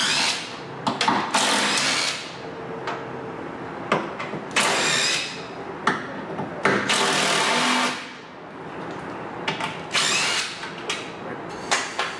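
DeWalt cordless drill-driver spinning out the 8 mm bolts on a radiator's top mounting brackets, in about five short runs of a second or less each, with small clicks between them.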